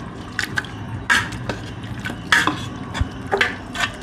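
Thick yogurt-marinated chicken sliding out of a steel vessel and dropping into an aluminium pot onto chopped onions: a series of short wet plops and splats, the loudest about one second and two and a half seconds in.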